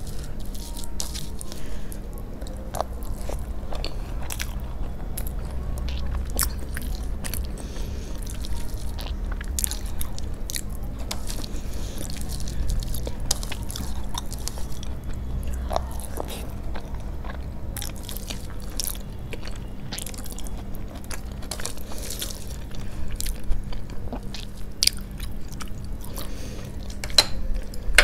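Close-up eating sounds: fingers mixing rice with curry on a steel plate and chewing, with many short, sharp wet clicks and smacks. A faint steady low hum runs underneath.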